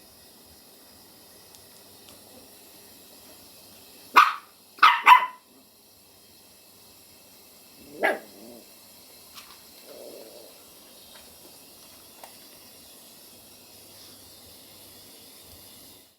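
Chihuahua–Schipperke mix puppy giving wary alarm barks. There is one sharp bark about four seconds in, two quick ones right after it, and a lower bark about four seconds later, with a few faint softer sounds after that.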